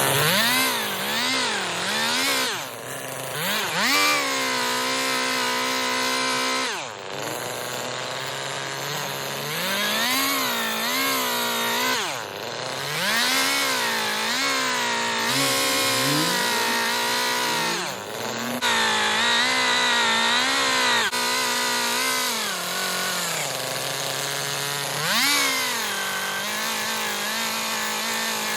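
Chainsaw revving up and down again and again as it carves wood. It drops back toward idle briefly several times between cuts.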